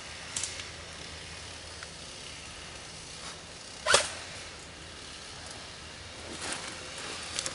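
A single sharp crack of an airsoft rifle shot about four seconds in, over a faint steady background with a few soft clicks and rustles.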